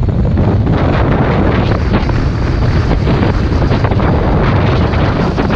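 Speedboat running at speed on a river: a steady, loud engine and water rush with heavy wind buffeting on the microphone.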